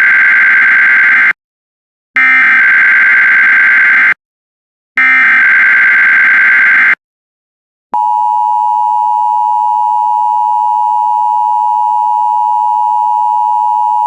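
Emergency Alert System SAME header: three harsh, buzzy digital data bursts of about two seconds each, separated by short gaps. About eight seconds in, the steady two-tone EAS attention signal starts. Together they mark the start of a tornado watch alert.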